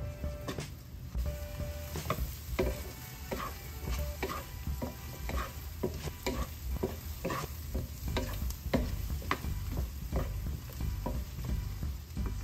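Wooden spoon stirring sliced carrots and shallots in a hot nonstick skillet: irregular scrapes and knocks, roughly two a second, over the sizzle of the sautéing vegetables.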